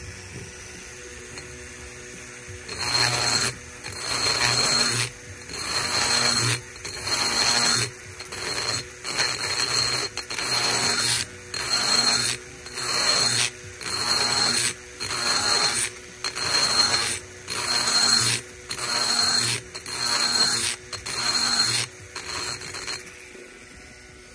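Cordless brushless rotary tool with a long carbide burr grinding the aluminium port of a Predator 212 cylinder head in sweeping passes. A harsh rasp with a high whine repeats about once a second, starting a few seconds in and stopping near the end.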